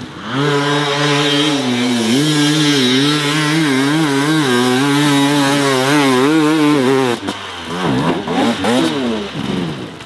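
Hard enduro dirt bike engine revving loudly, its pitch rising and falling in quick throttle bursts for about seven seconds. It follows with a few wider rev sweeps and then drops away near the end.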